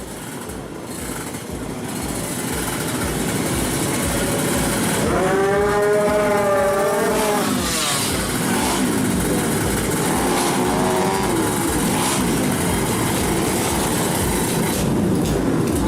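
Motorcycle engine revving and getting louder over the first few seconds, with its pitch swinging up and down around the middle.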